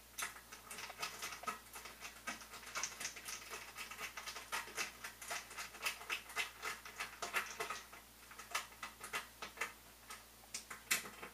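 Hand tool tightening 10-32 screws into the tapped holes of a 3D printer's steel frame, giving quick, irregular runs of small sharp clicks with a brief lull partway through.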